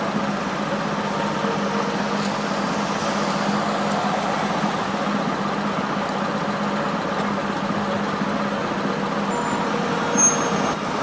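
Steady city street traffic noise with the constant engine hum of a heavy vehicle such as a truck or bus. A brief high squeak comes near the end.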